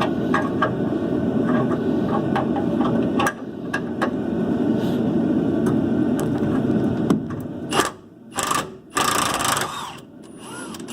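A ratchet clicking in short uneven strokes on a rusty upper rear shock-mount bolt, over a steady low rumble that stops about seven seconds in. Several louder scrapes and clanks follow near the end.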